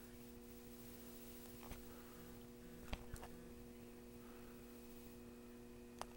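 Quiet room tone with a faint steady hum and a few faint clicks, the clearest about three seconds in.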